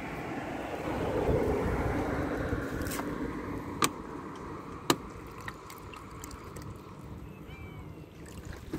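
A car passing by, a rumble that swells about a second in and fades slowly over several seconds, with a couple of sharp clicks. Near the end, water is poured from a plastic bottle into a small plastic cup.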